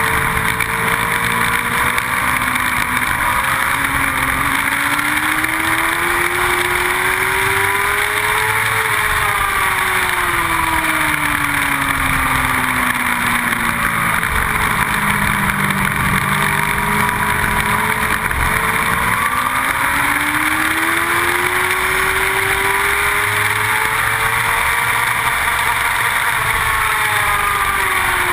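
Motorcycle engine under way heard from an onboard camera, buried in heavy wind rush on the microphone. The engine note climbs slowly over several seconds, falls away, holds low, then climbs again and drops near the end as the bike accelerates and slows around the track.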